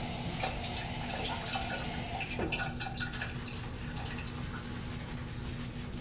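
Semogue 830 boar-bristle shaving brush swirled over a lathered face, a soft wet crackling and squishing of Mitchell's Wool Fat soap lather being built up with light strokes.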